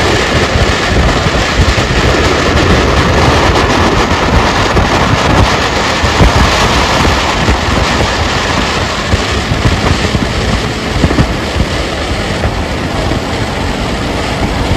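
Steady rush of road and wind noise from a moving vehicle, with no let-up.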